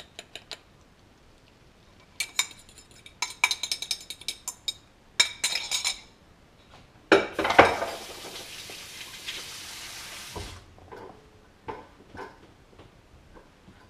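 A fork clinking and scraping against a ceramic bowl as beaten eggs are stirred and scraped into a frying pan, in quick clusters of light clinks. Then a steady hiss starts suddenly, lasts about three seconds and cuts off abruptly. A few light knocks follow near the end.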